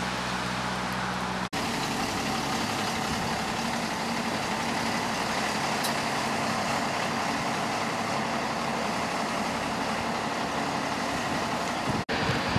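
Optare Versa single-deck bus engine running steadily, the sound changing abruptly at a cut about a second and a half in, after which a bus's engine runs on steadily at low speed.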